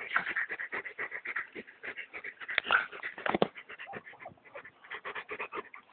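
A Bernese mountain dog and a French bulldog puppy at rough play, giving a rapid, irregular run of short noisy dog sounds, loudest a little before halfway through.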